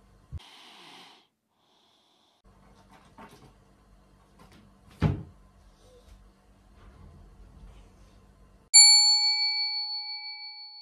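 A bright bell-like ding, a sound effect, strikes near the end and rings on as several clear tones, fading slowly. Before it there is only faint room noise, with a single sharp knock about halfway.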